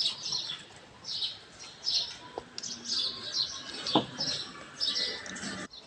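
Small birds chirping, short high calls repeated about every half second to a second, with a single knock about four seconds in.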